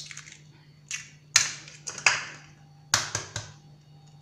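Eggs being cracked over a plastic mixing bowl: a string of sharp taps and cracks of eggshell, about eight in all, the loudest about a second and a half in.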